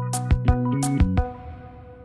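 Background music with a drum beat over sustained notes. It ends about a second in, leaving a chord that rings out and fades.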